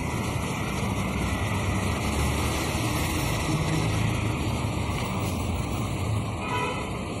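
Steady rumbling background noise with an even hiss, with a short pitched sound near the end.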